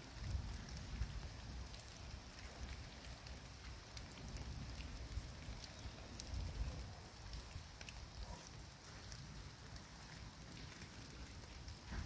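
Light rain pattering, with scattered drops ticking, over a low uneven rumble.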